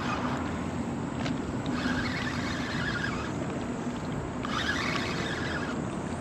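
Steady rushing noise of wind on the microphone, with two slight brightenings about two and five seconds in.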